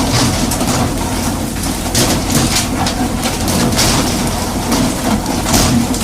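Steady low engine rumble under a constant rushing hiss of water, with frequent short splashes rising out of it.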